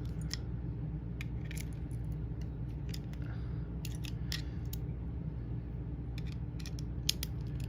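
Loose steel parts of a partly dismantled laminated warded lock clicking and clinking as they are worked by hand, with irregular sharp clicks, the loudest about seven seconds in, over a steady low hum.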